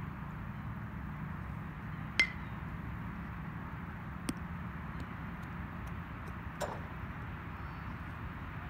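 Metal baseball bat hitting a ball with a sharp ringing ping about two seconds in, and a louder ping at the very end, with two fainter knocks between.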